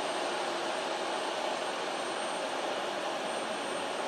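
Airbus A330-200's Rolls-Royce Trent 700 turbofan engines heard from afar on final approach: a steady jet noise that holds level throughout.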